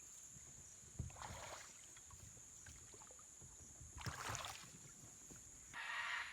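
Two slow paddle strokes swishing through the water as a small dinghy is paddled, about three seconds apart, over a steady high-pitched drone of jungle insects; near the end a louder buzzing insect call starts.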